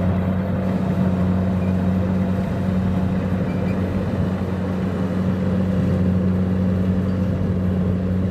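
Kubota DC-70 Plus rice combine harvester's diesel engine running at a steady speed: a constant, unchanging drone.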